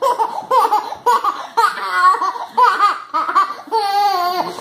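A small child laughing in quick, high-pitched bursts of giggles.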